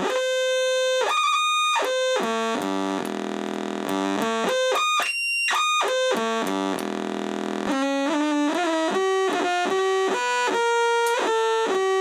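Homemade analogue synth oscillator droning, its pitch jumping in uneven steps as the decade resistor feeding its pitch input is switched: it climbs to a high note about five seconds in, then steps back down. The stepping is erratic, which the owner suspects may need contact cleaning.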